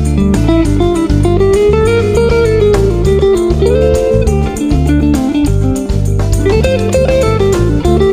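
Fender Telecaster electric guitar played through a PC-2A photo-optical tube compressor pedal: a melody of single picked notes with a bass line underneath.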